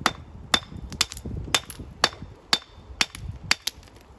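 Hammer blows on stone, steady at about two a second, each a sharp crack with a short metallic ring.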